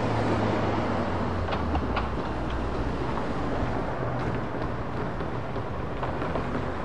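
Cars driving across a railroad crossing, their tyres clicking lightly over the rails, over a steady low hum.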